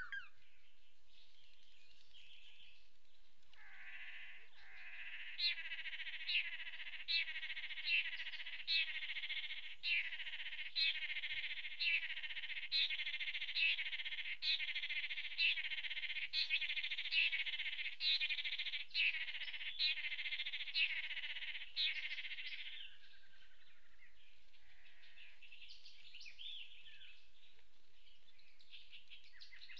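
Male lance-tailed manakins calling during their leapfrog courtship dance: rapid, continuous calling with sharp accents about once a second. It begins a few seconds in and stops about three quarters of the way through.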